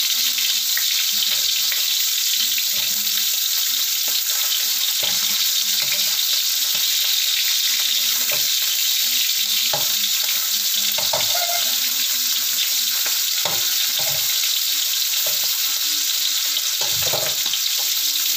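Chicken pieces frying in oil in a wok, a steady sizzle, with a spatula scraping and knocking against the pan now and then as the pieces are turned.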